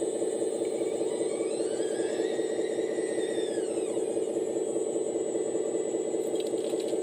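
Radio-controlled model of a Komatsu PC240 excavator running with a steady, rapidly pulsing mechanical buzz. A whine rises about a second in and falls away again about four seconds in as the machine works. A thin high tone holds steady throughout.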